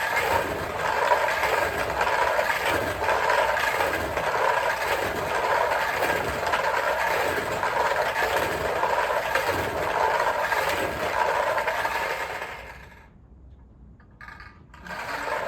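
Hand-turned lottery draw barrel spinning, its numbered balls tumbling and rattling inside; it stops about thirteen seconds in, and a shorter rattle follows near the end.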